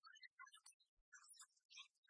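Near silence, with faint scattered high-pitched blips.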